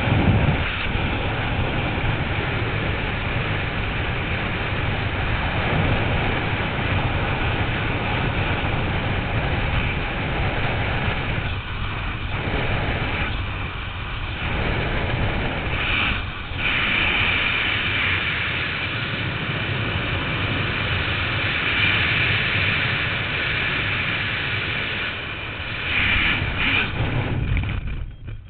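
Loud, steady rush of freefall wind buffeting a skydiver's head-mounted camera microphone, swelling and easing a few times, then falling away sharply near the end as the parachute opens and the fall slows.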